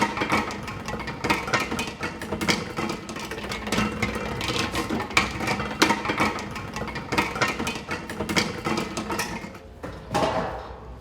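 Empty metal beer kegs repeatedly clanking and banging as they are handled and set down on hard ground with no rubber matting, over a steady hum. The knocks ease off near the end.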